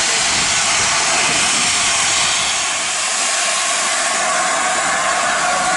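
Loud, steady hiss of steam escaping from LNER A4 Pacific steam locomotive 60007, released low down around its wheels and motion.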